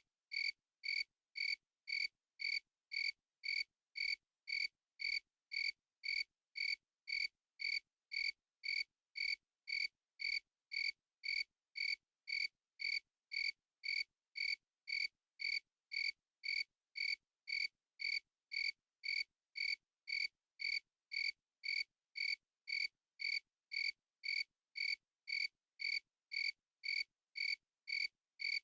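A cricket chirping in a steady, even rhythm, about three short chirps every two seconds.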